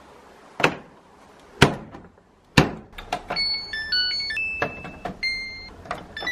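Door of a Samsung front-loading washing machine knocked shut three times, about a second apart, followed by a run of short electronic beeps at changing pitches from its control panel as buttons are pressed to set the wash cycle.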